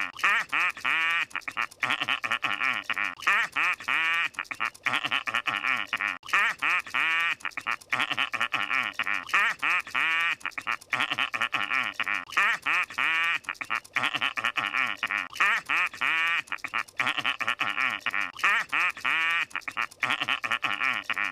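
Squidward's nasal, honking cartoon laugh: a run of quick pitched syllables, played over and over with short gaps between repeats.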